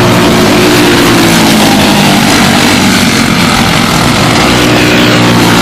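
Racing karts with Briggs & Stratton Animal single-cylinder four-stroke engines running at speed on track, several engines sounding together as a loud, steady, layered buzz that wavers slightly as the pack moves.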